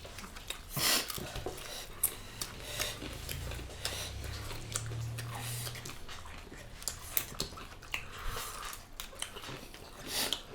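Close-up eating sounds: biting and chewing deep-fried crispy pork leg, with irregular crisp crunches and wet mouth clicks, the loudest crunch about a second in.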